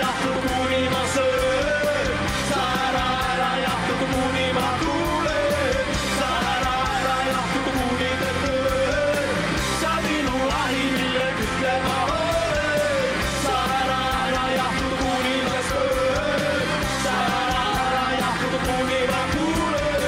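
Punk rock band playing a song live: electric guitars, drums and keyboard, with singing over it.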